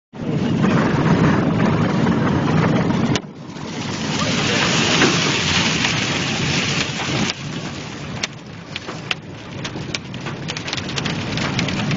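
Loud rushing wind noise buffeting a mobile phone's microphone during a tornado storm. It cuts out suddenly about three seconds in, swells again, then breaks into crackling near the end.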